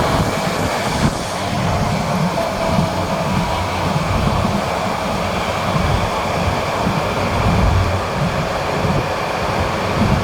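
Train running on the rails: a steady low rumble of wheels and carriages, with a sharp click about a second in.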